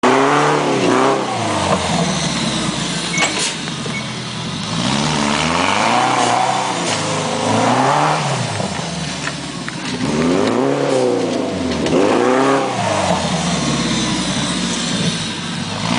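Fuel-injected off-road vehicle engine revving up and down over and over, about every one to two seconds. It is working its smooth tyres on grass.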